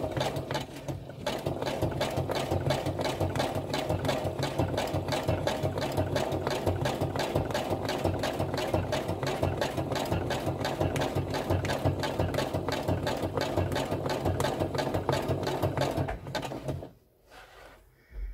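Sewing machine stitching through paper and card at a steady, rapid rate, sewing a photo onto a scrapbook page. The stitching stops about two seconds before the end.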